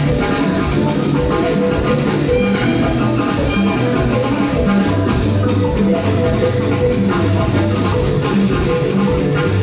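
Live band music with a drum kit keeping a steady beat under bass and melodic instruments.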